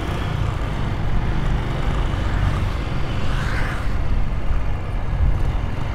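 Motorcycle riding along: engine and road noise as a steady low rumble, with a brief swell of noise about three and a half seconds in.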